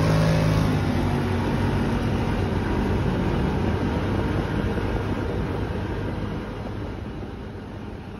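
Polaris quad bike's engine pulling away down a dirt track, with tyre and gravel noise, growing steadily fainter as it rides off.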